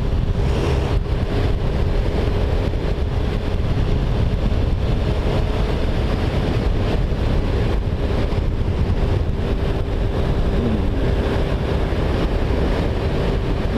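Motorcycle riding at a steady speed: the engine runs evenly under a steady rush of wind buffeting the microphone.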